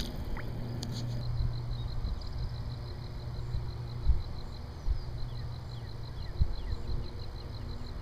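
Evening outdoor ambience: an insect calling in a steady run of short, even pulses, about eight a second, with a brief break about halfway. A few short falling bird chirps, a low rumble and a few dull thumps are heard along with it.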